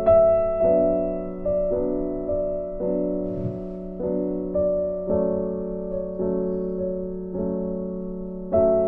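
Slow background piano music, a new chord struck about every second and fading before the next.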